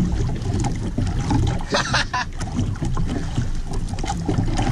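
Wind rumbling on the microphone and water washing against the hull of a small outrigger boat on choppy sea, with a brief hiss about two seconds in.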